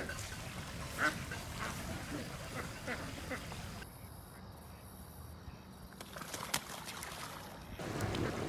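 A flock of domestic ducks quacking, many short overlapping calls in the first half, then fewer and quieter. Wind noise rises near the end.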